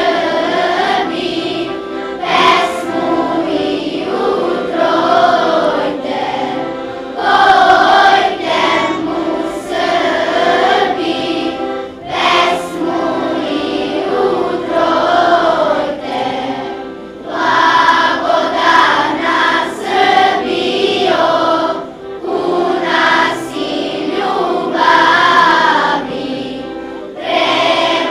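Children's choir singing together in phrases of about five seconds, with short pauses for breath between them.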